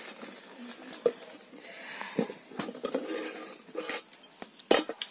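Lidded aluminium kadai clanking and knocking as it is lifted off a wood-fire hearth and set down on the ground: a few scattered knocks, the loudest near the end.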